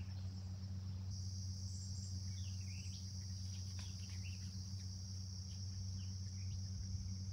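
Steady high-pitched insect chorus from the shoreline woods, starting about a second in, over a low steady hum, with a few faint short chirps.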